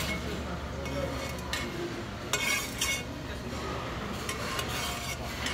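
Metal spoon stirring and scraping in a brass bowl of stew, with a few short scrapes about a second and a half in and again around two and a half seconds in.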